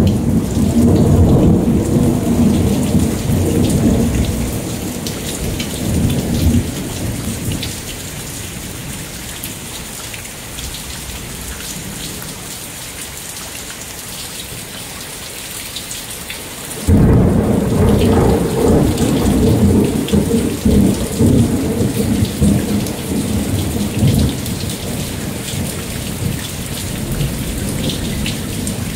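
Heavy rain pouring steadily, with thunder. A rumble dies away over the first several seconds. About halfway through, a sudden loud thunderclap breaks and rolls on for several seconds.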